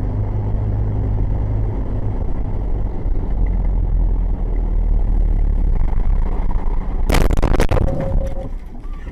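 Road and engine rumble of traffic recorded from inside a moving car by a dashcam, with a low hum for the first couple of seconds. About seven seconds in comes a loud burst of rapid knocks and crackling lasting about a second.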